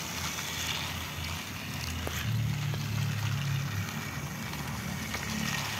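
Battery-powered toy train running along plastic track, its small motor and gears giving a steady low hum that swells a little in the middle.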